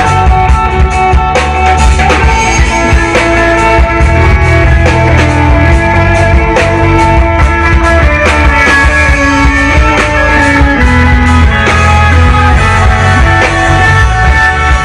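Live rock band playing an instrumental passage: electric guitar over drum kit and bass, with a melodic line stepping down in pitch through the middle.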